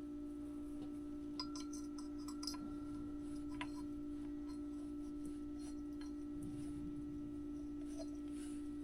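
A steady, faint hum, with a few faint metal clicks and ticks of small parts being fitted by hand.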